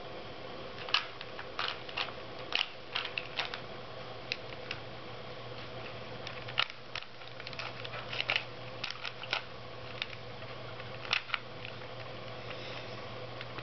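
A plastic Rubik's cube twisted by hand: the layers click and rattle as they turn, in irregular quick clusters of clicks with short pauses between.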